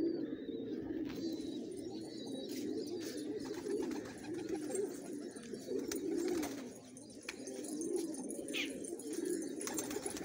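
A flock of domestic pigeons cooing continuously, many voices overlapping in a low, swelling murmur, with a few short clicks scattered through it.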